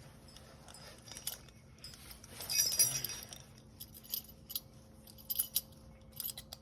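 Metal climbing-gear hardware clinking and jangling as it is handled, in scattered small clicks with one louder jangle about two and a half seconds in.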